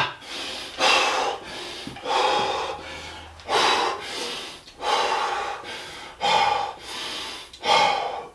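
A man breathing hard through his mouth, winded from burpees, with one loud, heavy breath about every second and a half.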